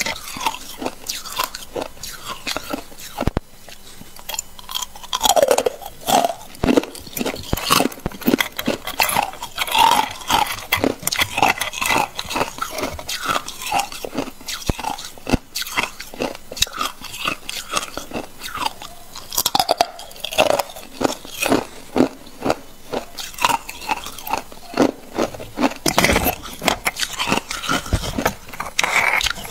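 Thin sheets of ice being bitten and chewed: a rapid, uneven run of sharp crunches and crackles that carries on throughout.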